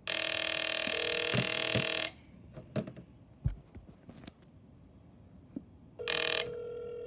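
A 1980 Princess 'Sweet Talk' rotary telephone's ringer rings for about two seconds, followed by a few light clicks. It rings again about six seconds in and is cut off after about half a second, leaving a steady tone.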